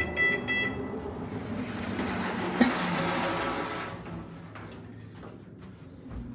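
Passenger lift: a rapid electronic beeping that stops under a second in, then about three seconds of hissing with a single knock in the middle, after which the lift settles to a quieter low hum with faint clicks.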